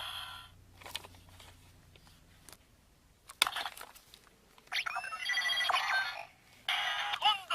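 Sound effects from the Zyuoh Changer Final transformation toy's built-in speaker: a jingle ends, a couple of sharp plastic clicks of its controls follow, then about five seconds in a burst of bright, ringtone-like electronic tones and gliding sounds, with warbling sweeps near the end.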